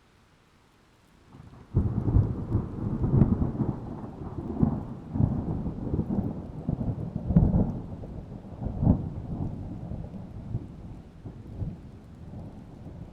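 Thunder: a sudden crack about a second and a half in, then a long rolling rumble with several loud peaks that slowly dies away. A new peal begins right at the end.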